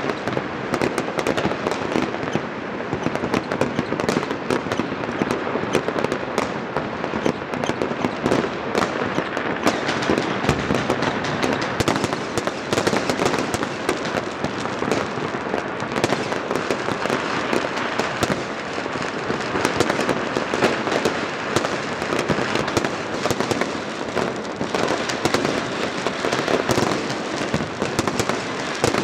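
Many fireworks and firecrackers going off at once across a city: an unbroken crackle of overlapping bangs and pops, many close together.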